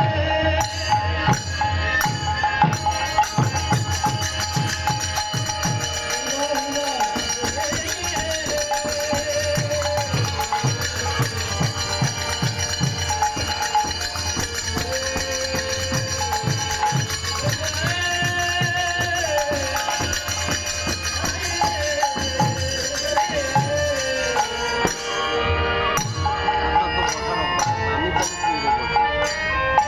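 Bengali kirtan music played without a break: rapid hand-drum strokes and jingling cymbals under a gliding melody line.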